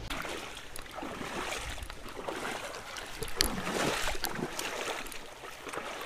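Water splashing and sloshing in shallow water, irregular, with a sharper splash about three and a half seconds in.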